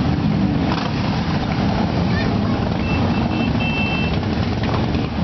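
Many motorcycle engines running as a procession of bikes rides slowly past one after another, the engine note rising and falling as riders open and close the throttle.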